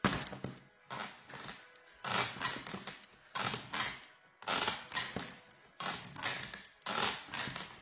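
Piadina dough being kneaded by hand and slammed against a worktop, a thud-and-slap about once a second.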